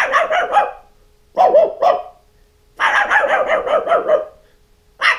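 A man imitating a chihuahua's bark with an inhaled, high-pitched voice: sharp 'wa' yaps in quick bursts, the longest run about three seconds in.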